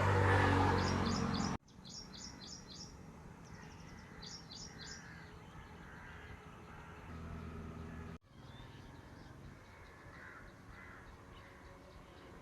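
Outdoor field ambience with birds chirping in quick groups of high notes and crows cawing. An engine runs loudly for the first second and a half and ends abruptly, and a fainter engine hum returns briefly about seven seconds in.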